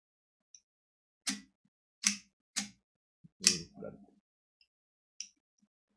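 Sharp plastic clicks and snaps from a Transformers Cyberverse Shockwave action figure's parts being worked by hand during transformation: four clear ones about a second apart, the last the loudest and followed by a brief scrape, with a few faint ticks between.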